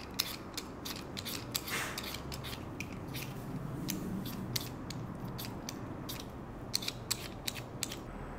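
Vegetable peeler scraping strips of skin off a raw potato in quick, uneven strokes, about two a second.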